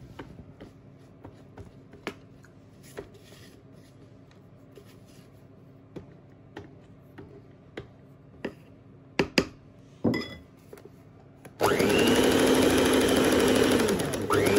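A spatula scraping and tapping in a bowl of flour and egg, then about twelve seconds in an electric mixer switches on and runs steadily through the batter, its whine dipping briefly and picking up again near the end.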